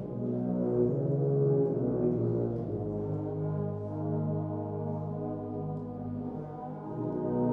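Low brass ensemble of trombones, euphoniums and tubas playing held, overlapping notes that move to new pitches every second or two.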